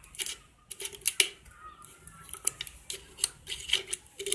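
Irregular sharp clicks and crackles of the tape-wrapped, paper-covered can being handled.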